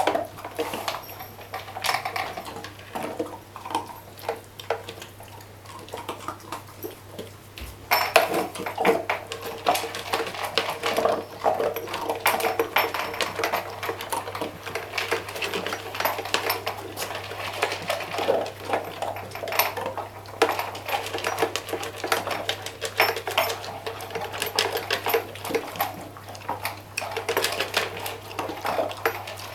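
A dog eating greedily from a food bowl, the bowl clinking and clattering against its muzzle in quick, irregular knocks that grow busier and louder about eight seconds in.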